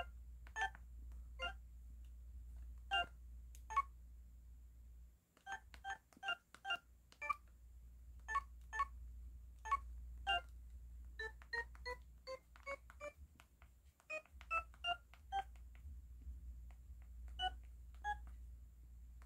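LG Wine 3G flip phone's 'electronic' keypad tone: a short pitched beep for each key press as digits and menu buttons are pressed, some one at a time and some in quick runs, the pitch varying from key to key.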